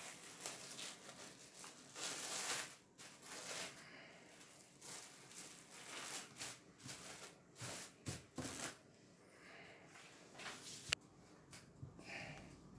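Plastic cling film crinkling and rustling in irregular bursts as it is peeled open from a block of chilled dough, with one sharp click near the end.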